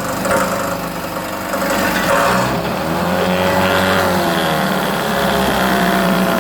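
1984 Johnson 4 hp two-stroke outboard motor running steadily. Its pitch rises briefly about halfway through and settles back, as it is revved and returned to idle. The carburettor has just been cleaned after the motor sat for two years, and it is running well.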